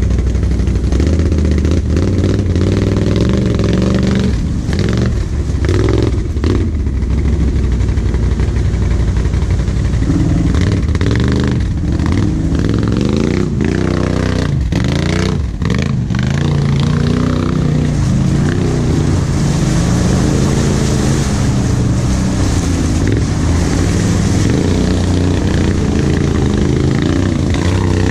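V-twin ATV engine heard from the rider's seat, running and revving up and down unevenly as the quad works through deep mud, with clattering and splashing of mud and water.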